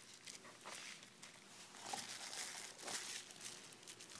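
Bubble wrap crinkling and rustling as bubble-wrapped RFID antenna boards are handled: faint, irregular crackles.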